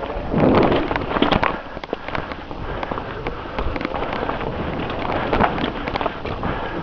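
Mountain bike clattering and rattling as it rides a dirt trail: irregular knocks and clicks over a steady rushing noise.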